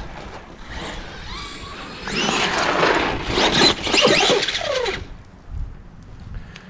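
Traxxas E-Maxx RC monster truck's 3500kV VXL brushless motor whining up and down in pitch under throttle on a 4S LiPo, mixed with tyre and dirt noise. Loudest from about two to five seconds in, it falls in pitch and dies away as the truck stops on the dirt mound.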